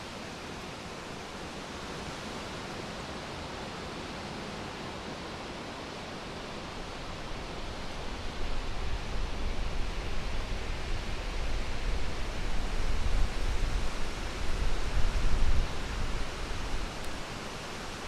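Steady hiss of wind in leafy trees, with a gust buffeting the microphone as an uneven low rumble from about halfway through until just before the end.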